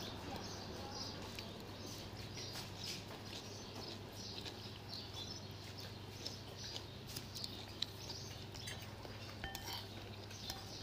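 Faint eating sounds of a person chewing and slurping rice noodles, with small clicks and scattered short, high chirps over a steady low hum.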